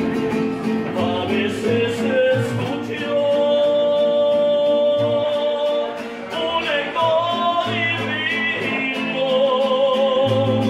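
Mariachi musicians performing: a man singing long held notes over a guitarrón and a smaller guitar keeping a steady plucked rhythm. The voice wavers on its held notes near the end.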